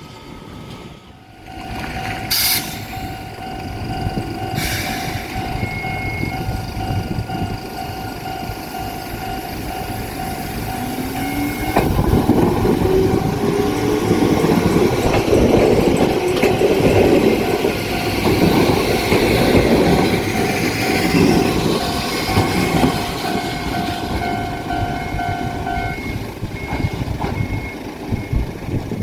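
An Ohmi Railway electric train passes, its motors whining up in pitch and its wheels rumbling. Most of the time a level-crossing warning alarm rings in a steady repeating tone, and it stops a few seconds before the end.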